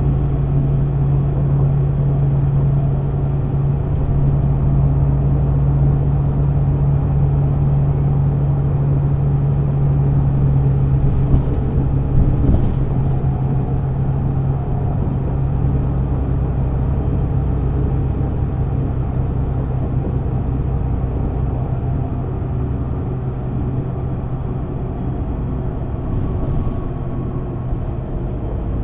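MAN NÜ 280 (Lion's City A20) city bus's six-cylinder diesel engine running steadily with a strong low hum. The hum fades about halfway through, with a few brief knocks just before.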